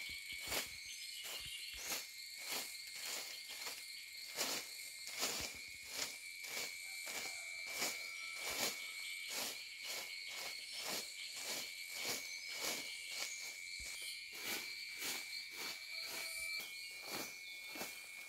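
Hoe blade scraping and chopping bare dirt in short repeated strokes, about two a second. A steady high-pitched insect drone runs behind it.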